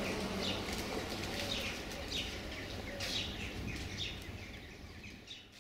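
Small birds chirping repeatedly in short falling chirps, about two a second, over a low steady rumble. The whole sound fades out near the end.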